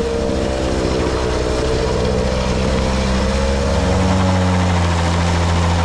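Tomos moped's small two-stroke engine running under way, over steady road and wind rush. A deeper engine hum grows stronger from about two seconds in.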